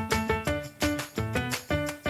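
Background music with a steady, bouncy beat of plucked or struck pitched notes.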